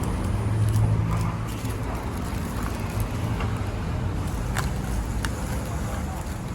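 Steady low rumble of road traffic and idling engines, with a few faint clicks.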